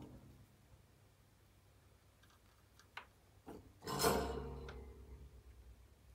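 Soldering tools handled on a workbench: a sharp click about three seconds in, then a louder clatter about four seconds in that dies away over about a second, as tweezers and a soldering iron are picked up.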